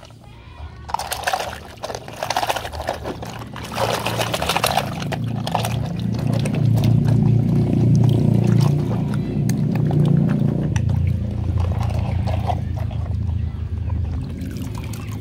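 Muddy puddle water splashing and sloshing as a plastic toy truck is scrubbed and swished through it by hand. It grows louder and deeper about six seconds in.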